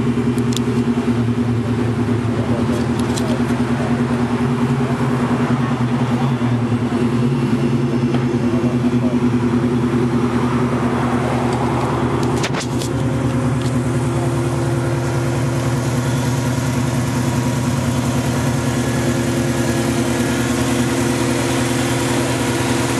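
Turbocharged Subaru EJ flat-four engine idling steadily, with a single sharp knock about halfway through.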